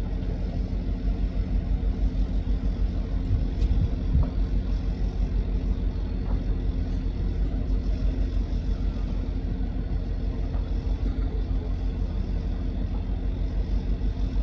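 An engine idling steadily, a low even hum, with a light knock or two about four seconds in.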